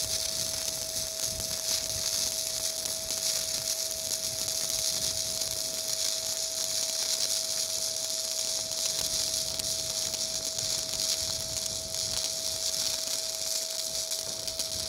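Stick (MMA) welding arc burning a 3.2 mm 312 dissimilar-metal electrode at about 110 amps, laying a fillet weld on steel. It gives a steady crackling hiss, with a steady whine underneath.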